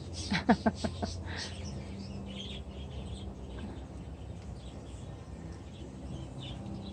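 Wild birds chirping faintly in the background over a low steady hum, with a quick run of four or five short pitched calls in the first second.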